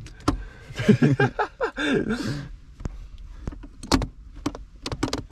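A person's voice for about two seconds, without clear words. Then a run of irregular sharp clicks and taps as a car's loose gear-shift knob is handled.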